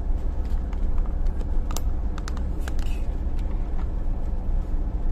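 Steady low road and engine rumble of a camper van driving along, heard from inside the cab, with a few short light clicks scattered through it.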